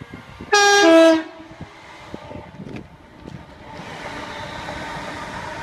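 Electric passenger train sounding its two-tone horn once, a higher note then a lower one, loud and brief, about half a second in. Then the train rushes past underneath with a steady, building noise of wheels and body.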